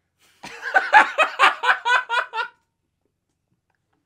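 Hearty male laughter in a quick run of short bursts lasting about two seconds, then it cuts off abruptly into silence.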